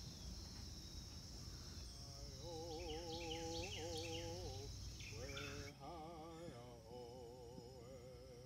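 Crickets chirping steadily under a slow melody of long, wavering held notes that enters about two and a half seconds in, most likely sung. The cricket sound drops away a little before six seconds, while the wavering notes carry on.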